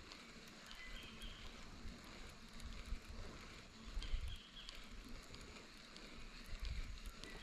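Wind buffeting the microphone in irregular low gusts, with a bird's short high call repeated about every three to four seconds in the background.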